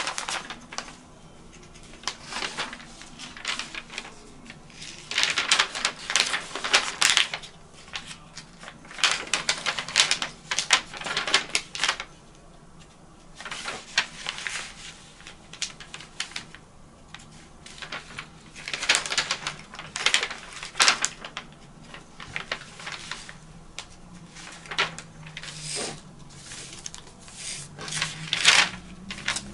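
A paper sewing pattern and shirt fabric being handled and folded back on a table, rustling in irregular bursts, with quick scratching strokes of tailor's chalk marking the dart points.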